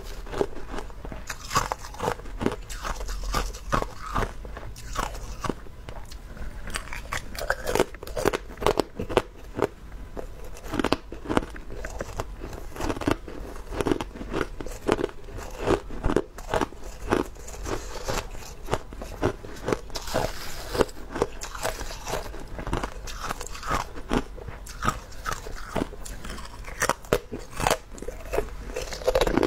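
Ice being bitten and crunched between the teeth, picked up close by a clip-on microphone: dense, irregular crisp cracks and crunches, several a second, as hard ice is chewed.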